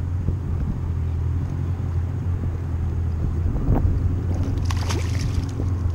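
Steady low rumble throughout. About five seconds in, a short splash as a released striped bass is slipped back into the water.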